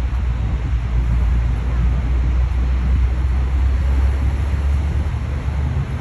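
Wind buffeting the microphone with a steady low rumble, over the even hiss of surf.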